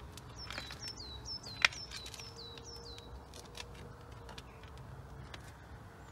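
A small bird singing a quick run of downward-slurred chirps, about three a second, which stops about three seconds in. Light clicks run underneath, with one sharp click about one and a half seconds in.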